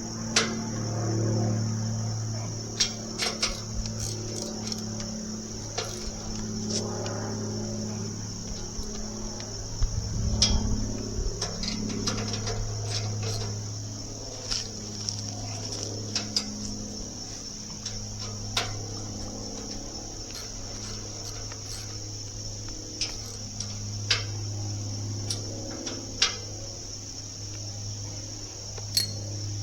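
Steady, high-pitched insect chorus, with a low steady hum underneath and scattered sharp clicks and knocks of tools or metal being handled.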